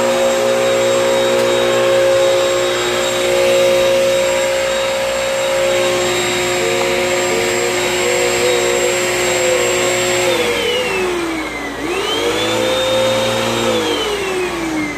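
Vacuum cleaner running steadily. About ten seconds in it is switched off and its motor whine falls in pitch. It is briefly switched back on and rises to speed, then is switched off again near the end and winds down.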